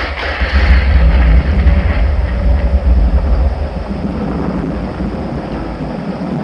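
Model-layout thunderstorm sound effect: a deep rolling thunder rumble, loudest in the first two seconds and slowly dying away, under a steady hiss of rain.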